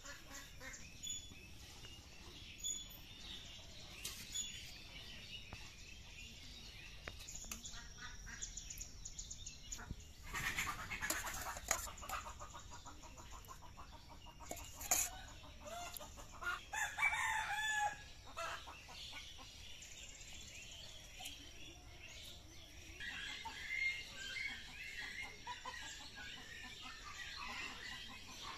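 Domestic chickens clucking, with a rooster crowing about two-thirds of the way through, and a few sharp knocks in the middle.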